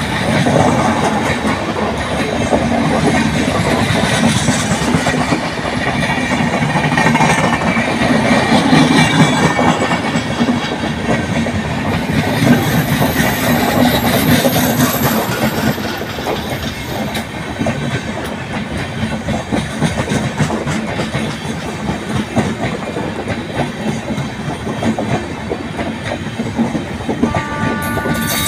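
Electric passenger train's coaches passing close by, the wheels clattering over the rail joints with a steady rumble and clickety-clack.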